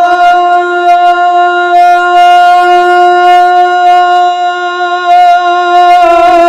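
A man's voice holding one long, steady sung note during unaccompanied naat recitation, drawn out for several seconds without a break.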